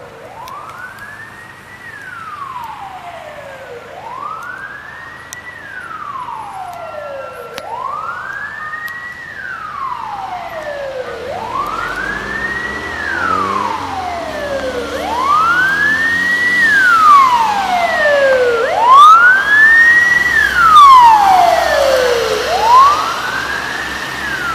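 Mercedes-Benz Sprinter ambulance siren on the wail setting: a tone sweeping slowly up and back down, about seven cycles, each taking nearly four seconds. It grows steadily louder as the ambulance draws near, with the van's engine and tyres audible underneath in the second half.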